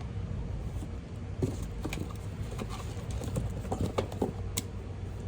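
Scattered light clicks and taps of the new angle grinder and its packaging being handled, over a low steady hum.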